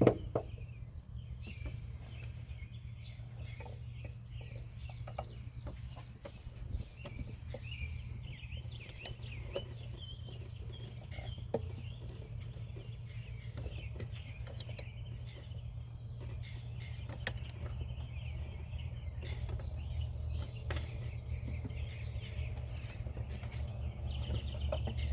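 Birds chirping over a steady low rumble, with a few scattered clicks.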